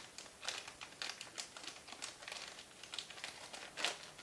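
Plastic packaging bags crinkling and rustling in irregular bursts as small parts are handled and pulled out of a box, with a louder crinkle near the end.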